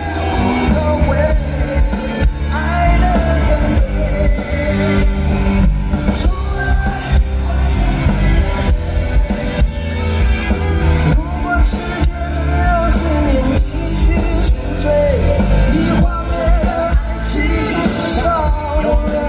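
Live rock band music with electric guitars over a heavy low beat, and singing.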